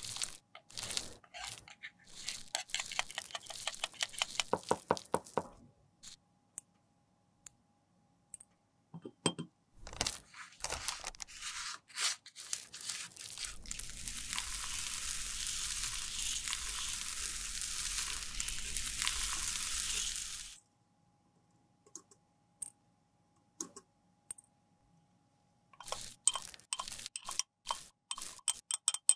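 A metal spatula scraping and crushing pressed white makeup powder in its pan, a dense crackle of small scratches for several seconds. Halfway through, a brush swirls the powder through a mesh sifter in a jar, a steady scratchy hiss for about seven seconds. Near the end come light ticks and clinks as powder is tipped from a glass jar.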